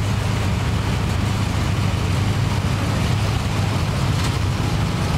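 Low, steady engine rumble of a hot rod coupe pulling slowly away.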